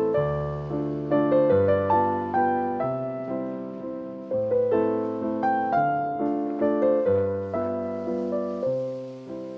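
Slow solo piano music as background, with chords over low bass notes, each struck and left to ring out.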